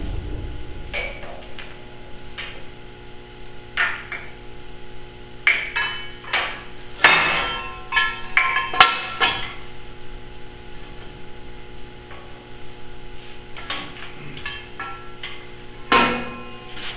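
A steel beam hung from a chain being handled and set down on steel: a scatter of sharp clanks, each ringing briefly, thickest about six to nine seconds in, with one more near the end, over a steady hum.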